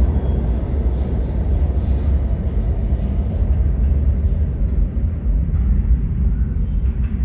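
New York City subway train of R68-series cars running on the track: a loud, steady low rumble of wheels on rail, its higher rattle easing off after about three seconds.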